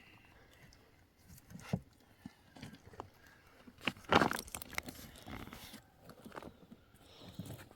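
Irregular rustling, crunching and clicking handling noises, with a louder crunchy burst about four seconds in.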